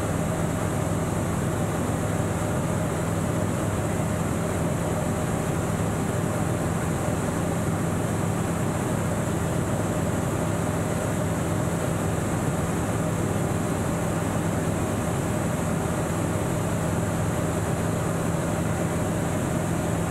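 Single-engine light aircraft's piston engine and propeller running steadily, heard inside the cockpit as an even, unbroken drone with a low hum.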